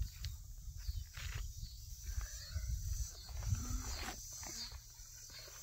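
Wind buffeting the microphone in a steady low rumble, with scattered rustles and clicks as a fabric bag is handled and picked at.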